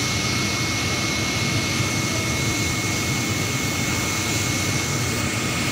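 Industrial fabric printing machine running: a steady, even machine noise with a thin, steady high whine throughout.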